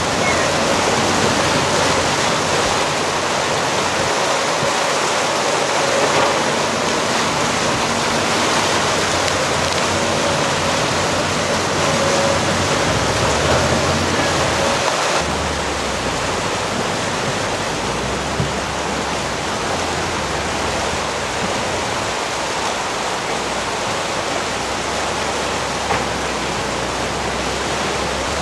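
Steady rushing of a swollen, flooding river running fast past its eroding bank. A tracked excavator's engine runs faintly underneath.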